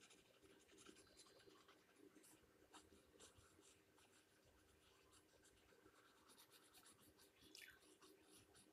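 Faint scratching of a pencil on paper: many quick, short shading strokes.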